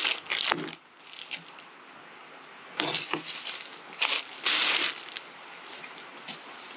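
Plastic packaging crinkling and rustling as it is handled, in irregular bursts with a few light clicks.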